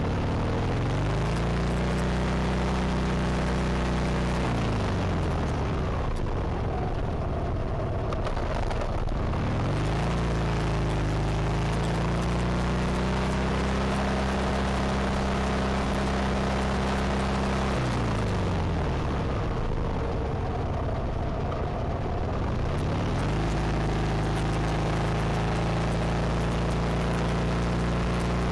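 Harley-Davidson Sportster 1200's air-cooled V-twin engine under way: its pitch climbs as it pulls away, holds steady while cruising, and slides down as the rider rolls off, about four seconds in and again about eighteen seconds in, each time climbing back up. A steady rush of wind runs underneath.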